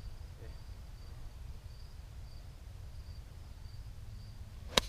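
A single sharp click of a golf club striking the ball on an approach shot near the end, over a faint high insect chirp that repeats about twice a second and a low background rumble.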